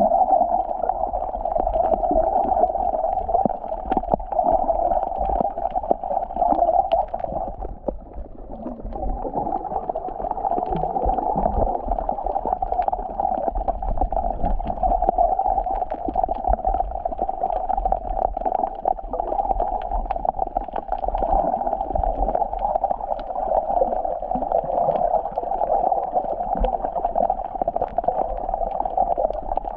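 Seawater gurgling and sloshing close to the microphone, muffled, as if the microphone is at or under the surface, with many small clicks and a low rumble; it dips briefly about a quarter of the way in.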